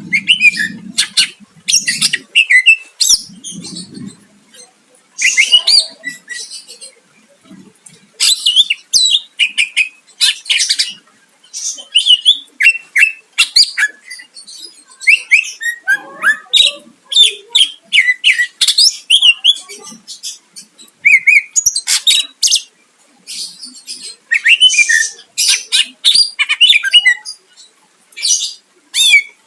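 Cucak ijo (green leafbird) singing energetically: quick bursts of varied chirps, slurred whistles and harsh notes in phrases a second or few long, broken by short pauses. A faint low hum sits under the first few seconds.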